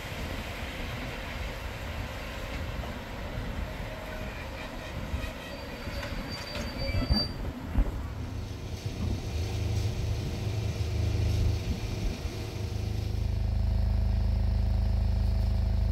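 Railway carriage wheels running on the track with a high wheel squeal partway through. About halfway in the sound changes to a steady low engine hum that grows louder near the end.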